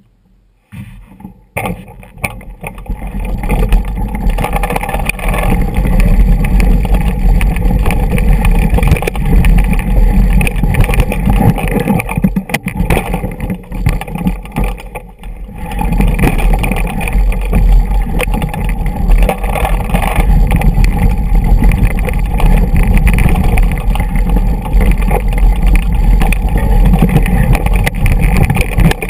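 Wind buffeting the microphone of a camera on a mountain bike riding down a rocky dirt track, mixed with the rattle and clatter of the bike over loose stones. It starts after about a second of silence and eases off for a few seconds near the middle.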